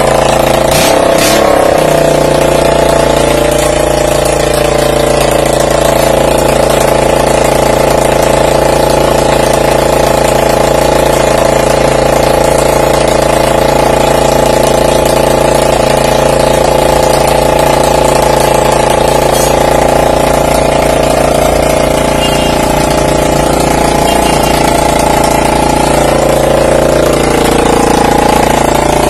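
Hero Splendor Pro's single-cylinder four-stroke engine running steadily after half-engine work, its pitch rising and falling slightly a few times.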